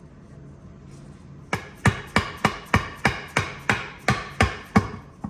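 A ball-peen hammer beating on a brass drift punch, about eleven blows at roughly three a second with a metallic ring, starting about a second and a half in, driving the tight countershaft out of a Muncie M21 four-speed transmission case.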